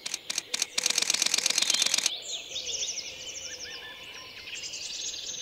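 Camera shutter clicking: a few single shots, then a rapid continuous burst lasting about a second. The burst is followed by small birds chirping and trilling.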